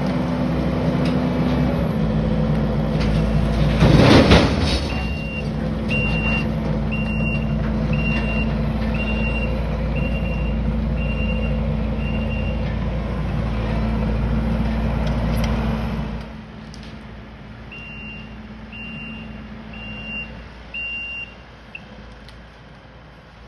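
Kubota compact track loader's diesel engine running steadily, with a brief loud burst of noise about four seconds in. Its backup alarm then beeps about once a second as it reverses, stops, and beeps again more faintly after the engine sound drops away.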